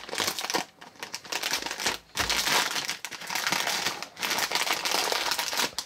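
Crinkling of a snack bag as it is handled and pulled open, with short pauses about a second, two seconds and four seconds in.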